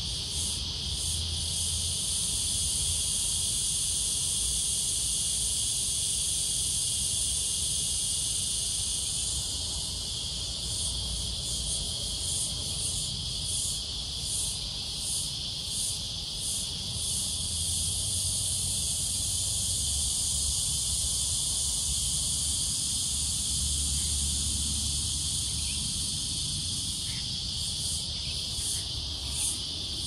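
Cicada chorus: floury baker cicadas, with green grocer cicadas further off, making a steady, loud, high-pitched drone. A pulsing beat of about two a second comes and goes within it.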